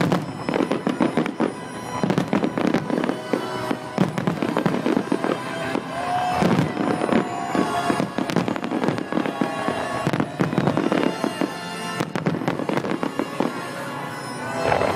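Aerial fireworks in a dense finale barrage: rapid, overlapping bangs and crackling from many shells bursting at once. Music plays along with the display.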